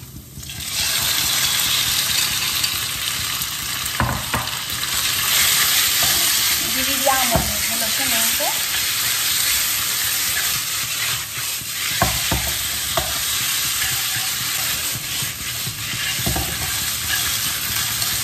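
Chicken pieces dropped into hot oil in a nonstick pan start sizzling abruptly about half a second in, then fry with a steady sizzle while being stirred with chopsticks, which click against the pan a few times.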